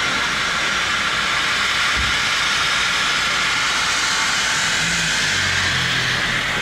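LMS Stanier Black Five 4-6-0 steam locomotive No. 45305 working its train uphill, heard from the carriage behind: a steady rushing hiss of steam with train running noise. The hiss eases slightly about five seconds in, and low hums come in.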